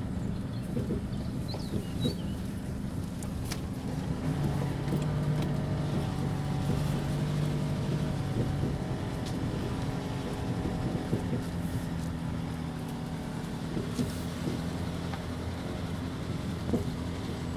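Nissan Navara D40's 2.5 dCi four-cylinder turbodiesel running steadily under load while driving off-road in four-wheel drive high range. The engine note rises about four seconds in and eases back down after about nine seconds, with scattered knocks and clatters over the rough ground.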